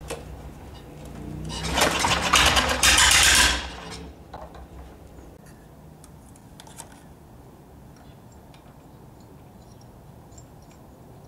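The lawn tractor's small engine is cranked and fires. It runs loudly for about two seconds, then cuts out just before four seconds in, leaving faint metallic clicks.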